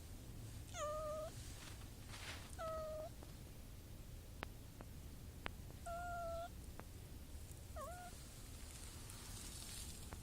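A cat meowing four times, short calls of about half a second each, the last one shorter. A few faint sharp ticks come between the calls.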